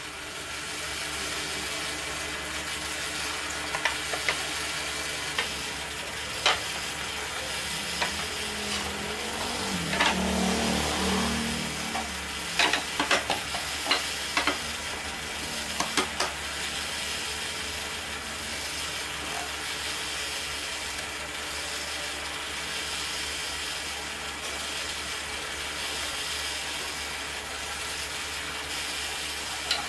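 Wooden folding stool being handled and unfolded, giving a few sharp wooden clicks and knocks, clustered from about twelve to sixteen seconds in, over a steady hiss. A brief low rumble swells and fades near the middle.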